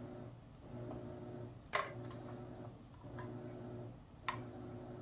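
Two sharp clicks of small hand tools being picked up and handled on a workbench, one a little under two seconds in and another just past four seconds, over a steady low hum.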